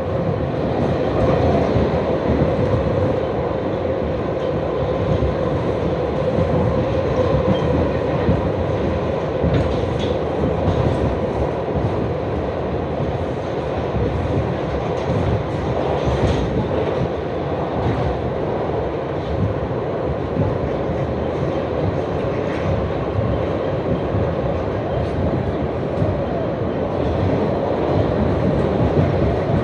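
New York City Subway 3 train running steadily along the track: a continuous rumble of wheels on rail with a steady hum over it.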